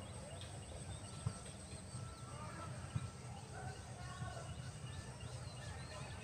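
Faint outdoor ambience of many small birds chirping and calling, short overlapping chirps throughout, over a steady low rumble, with two soft knocks about a second in and at three seconds.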